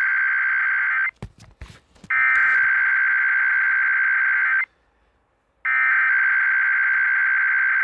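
Emergency Alert System SAME header: three harsh, buzzing digital data bursts of a Required Weekly Test. The first is already going and stops about a second in; after a gap with a few clicks, two more follow, each about two and a half seconds long, a second apart.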